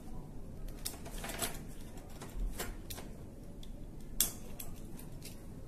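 Scattered light clicks and scrapes of a steel wedge drop clamp being handled as its wedge is slid into the shell around a fiber drop cable, with one sharper click about four seconds in.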